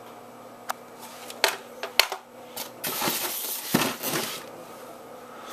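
Handling noise from the plastic RC transmitter and the boat's foam packaging: several sharp clicks and knocks of hard plastic in the first two seconds, then a longer stretch of scraping and rubbing about three to four seconds in.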